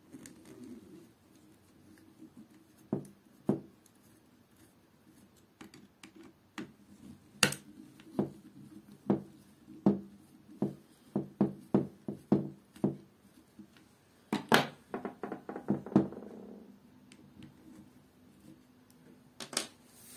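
Clicks and knocks of plastic parts as an opened corded impact drill is taken apart by hand: a few scattered clicks, then a run of sharp clicks about two a second, the loudest and quickest cluster a little past the middle.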